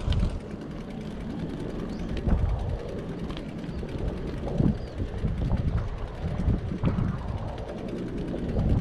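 Riding noise from a chest-mounted action camera on a moving bicycle: wind buffeting the microphone, with irregular low thumps and light rattles from the bike every second or two.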